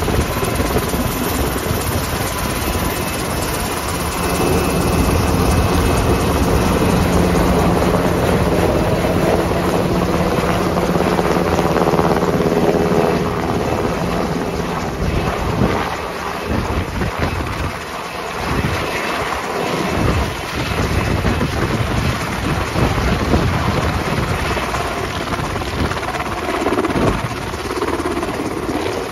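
Sikorsky UH-60 Black Hawk helicopter with twin turbine engines, running loud as it descends, hovers and lands, with a steady engine and rotor tone that is strongest in the first half. In the second half the rotorwash buffets the microphone in uneven gusts.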